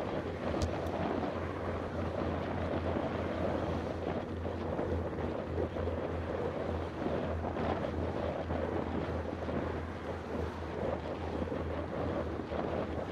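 Steady wind rushing over the microphone of a camera on a moving road bike, with one sharp click about half a second in.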